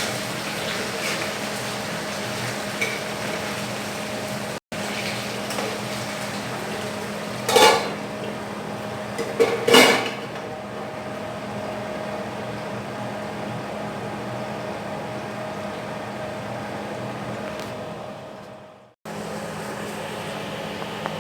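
Cubed potatoes frying in a pan with a steady low sizzle over a continuous hum, and a metal spatula scraping and clattering against the pan twice, about 7 and 10 seconds in. The sound drops out briefly twice.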